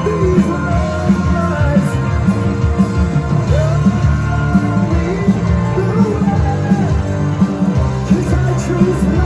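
Hard rock band playing live, loud and full: distorted electric guitars, bass guitar and drums through a club PA.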